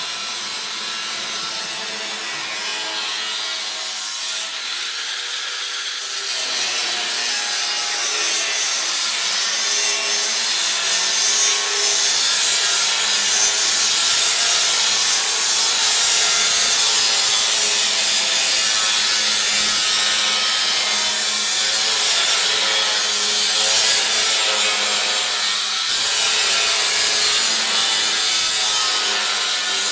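Power tool cutting steel: a steady rasping sound with a wavering whine, growing louder after about ten seconds.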